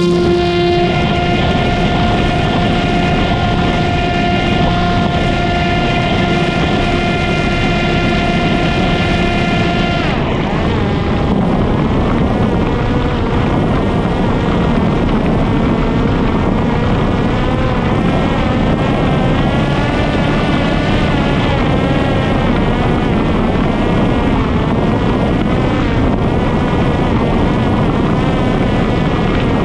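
Parrot Disco drone's electric motor and propeller running hard with a steady high whine. About ten seconds in, the pitch starts to waver up and down and wind rush joins it. The owner finds that the original motor sounds unhealthy and runs at too high rpm.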